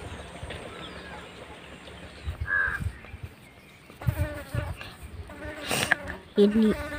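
A fly buzzing close by, a steady hum that sets in about four seconds in.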